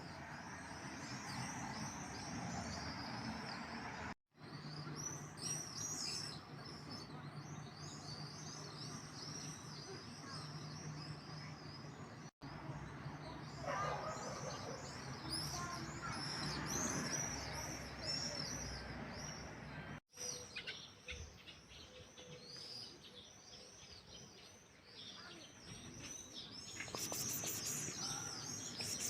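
A chorus of many songbirds singing and chirping at once, with dense high chirps all through and a busier burst of chirping near the end. The sound drops out briefly three times.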